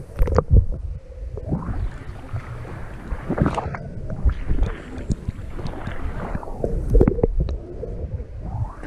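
Muffled underwater water noise around a submerged action camera while snorkeling: swishing, gurgling swells of water every couple of seconds, with irregular knocks and thumps against the camera housing.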